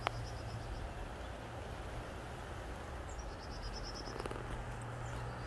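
Outdoor ambience: a steady low hum under a faint hiss, with a high, rapidly pulsed trill from an insect, frog or bird near the start and again for about a second around three seconds in.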